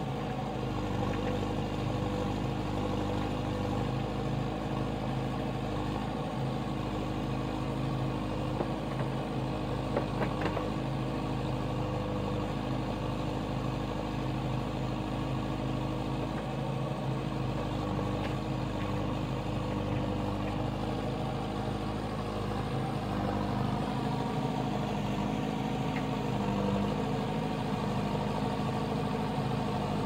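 JCB 3CX backhoe loader's four-cylinder diesel engine running steadily while the backhoe arm digs, with a few faint knocks.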